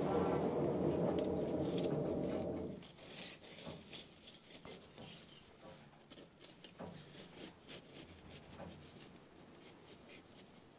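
Forge bellows blowing air through a coal fire, a steady rush that stops about three seconds in. After that, soft scrapes and clicks of blacksmith tongs shifting a knife blade in the coals as it is heated for tempering.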